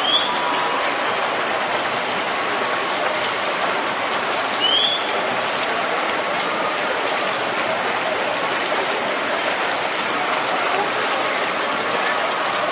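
Steady rushing water noise from the swimming pool, splashing and churning water, with two short rising high chirps, one at the very start and one about five seconds in.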